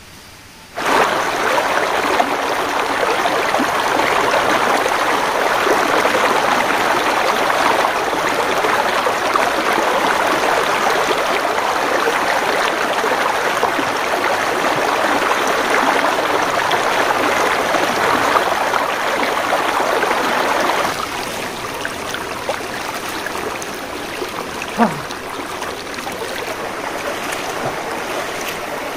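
Shallow rocky river rushing over boulders: a steady, loud rush of water that starts suddenly about a second in and turns somewhat quieter about two-thirds of the way through.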